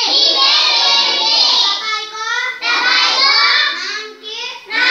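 A class of young children chanting together in chorus, phrase by phrase in a sing-song way, with short breaks between phrases.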